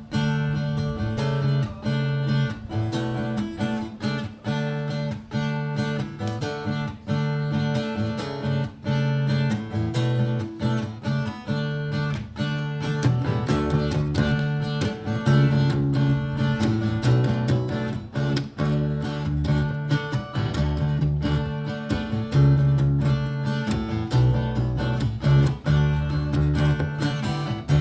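Baritone guitar playing a rhythmic, strummed chord intro to a song, with deeper low notes joining in about halfway through.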